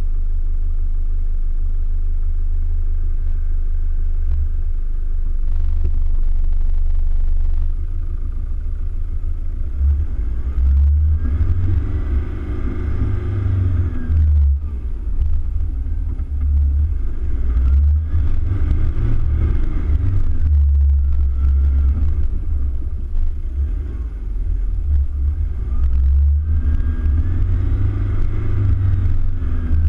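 Toyota Hilux Vigo pickup driving over soft sand dunes, heard from a hood-mounted camera: a heavy low rumble throughout, with the engine revving up and easing off in three surges.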